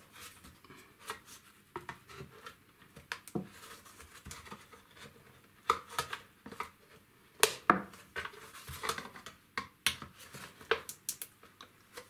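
Flat-head screwdriver prying around the plastic outer shroud of a Dyson V7 cyclone assembly, with irregular sharp plastic clicks and scrapes as the retaining clips are worked loose, the loudest clicks a little past halfway.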